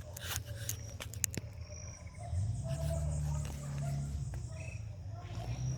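Outdoor ambience with insects chirping in short repeated high notes over a steady low hum, with a few sharp clicks in the first second or so.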